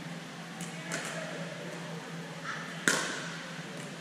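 A pickleball paddle strikes the hard plastic ball for a serve about three seconds in: one sharp, echoing pop. A couple of faint taps come earlier.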